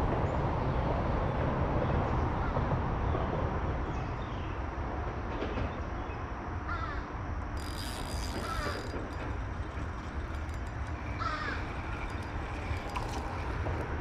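Short bird calls, several times, over a steady low background rumble.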